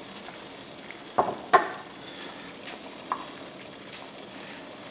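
Olive oil heating in a stainless steel skillet, sizzling faintly over the steady hiss of a pot of water at the boil, with a few sharp clicks or pops, the loudest two close together about a second in.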